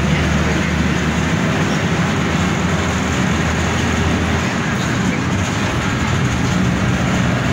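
Steady engine and road noise inside a moving city bus: the engine's low hum under a constant rush of road and wind noise, the low note shifting about a second and a half in.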